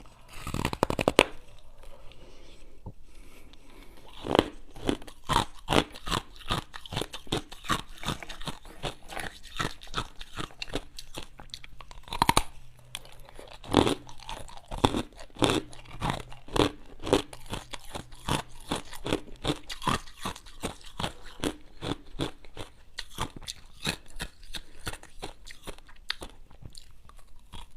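A person biting and chewing ice close to the microphone: a steady run of crisp crunches, several a second, with louder bites now and then.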